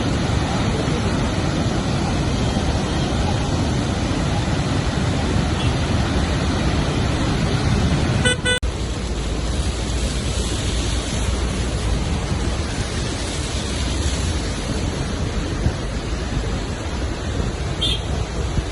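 Steady rush of water pouring from the dam's open gates, with a short vehicle horn toot about eight seconds in.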